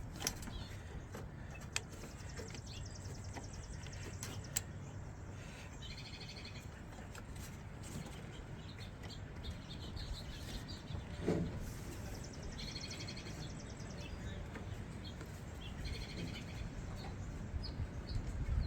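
Birds chirping in short bursts several times, with a few fast high trills, over a steady low background hum; scattered sharp clicks and knocks sound now and then.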